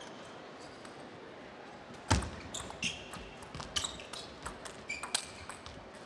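Table tennis rally: the plastic ball clicks sharply off the bats and the table, several hits about every third to half second, with short squeaks of shoes on the court floor. A heavy thump about two seconds in comes before the run of clicks.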